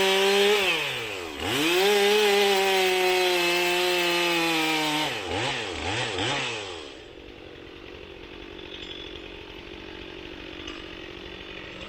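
Two-stroke chainsaw revved up to full throttle, dipping briefly about a second in and then held high for about three seconds. It then gets three quick blips of the throttle and drops back to a low, quieter running for the rest.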